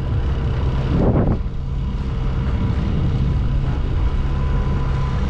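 Small fishing boat's outboard motor running steadily under way, a constant low hum, with a brief gust of wind on the microphone about a second in.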